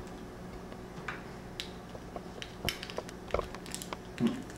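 Scattered light clicks and taps of hands handling a laptop's plastic casing and screen bezel, about half a dozen irregular ticks over a faint steady hum.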